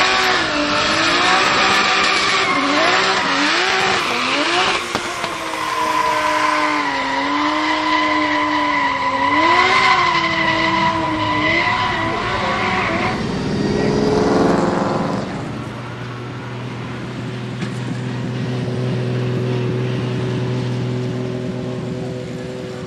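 Drift car engine revving up and down while the rear tyres screech sideways, for about thirteen seconds. After that it gives way to a quieter, steady engine note at low revs.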